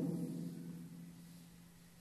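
Quiet room tone with a faint steady low hum, after a man's voice trails off in the first moment.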